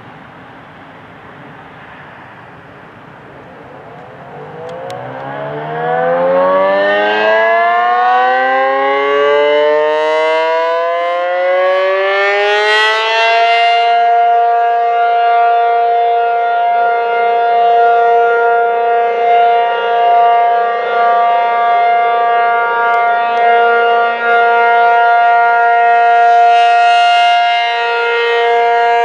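ACA Penetrator-50 rotating civil defense siren winding up from rest during its monthly test. It starts a few seconds in, rises in pitch for about ten seconds, then holds a steady wail that swells and fades slightly as the horn turns.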